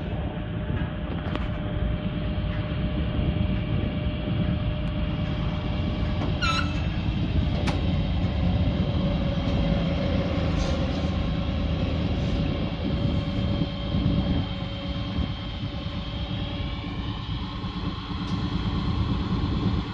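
A 6.7-litre Cummins six-cylinder diesel engine running steadily, with a brief squeak and a sharp click about six and a half to eight seconds in.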